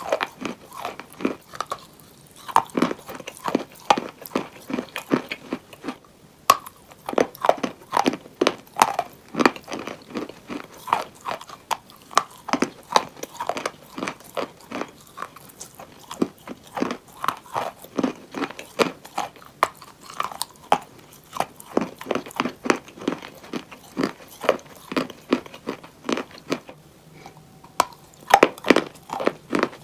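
Close-miked biting and chewing of chalk bowls: a dense run of sharp crunches and crackles, several a second, with a short lull near the end.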